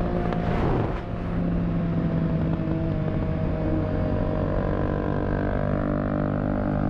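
Motorcycle engine running steadily while riding. Just under a second in there is a brief rush of noise, then a short dip in level before the engine carries on.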